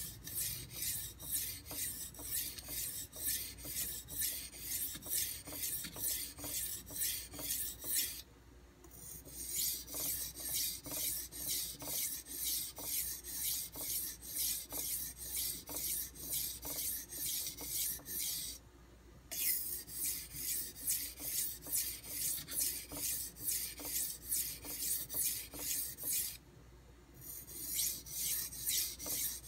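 High-carbon stainless Santoku edge being stroked back and forth on a Nubatama Ume extra-hard 1000-grit whetstone: a rhythmic gritty scrape at about two to three strokes a second. The strokes pause briefly three times, about 8, 19 and 27 seconds in.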